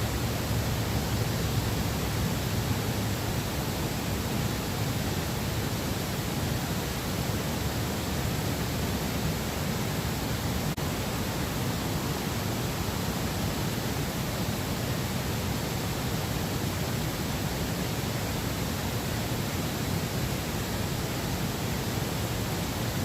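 A steady, even rushing hiss with no distinct events, like running water or wind.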